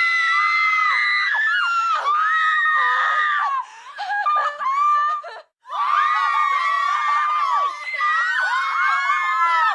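A group of children screaming, several high-pitched voices overlapping in long, sliding screams. The screaming breaks off briefly about five and a half seconds in, then starts again.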